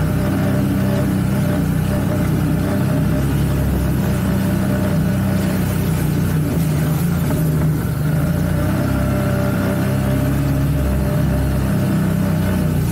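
CFMoto CForce 1000 ATV's V-twin engine running steadily under light throttle while the quad is ridden at low speed, its pitch wavering only slightly.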